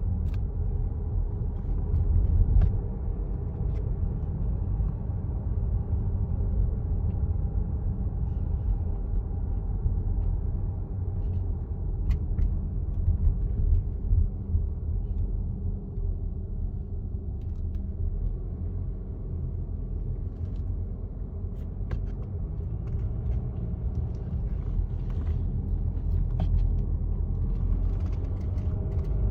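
Volvo XC60 running, a steady low rumble with faint irregular ticks scattered through it. The ticking comes from a worn lower engine mount on the driver's side.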